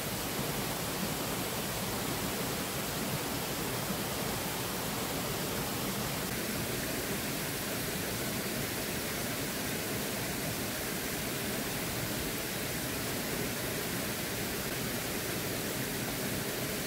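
Steady rushing hiss of water from a small waterfall and rocky stream, an even, unbroken noise; its tone shifts slightly about six seconds in.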